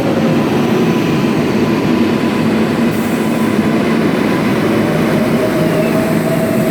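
NYC subway R188 train running through the station: a steady, loud rumble of wheels on rail. A faint whining tone fades out about half a second in and returns, rising, near the end.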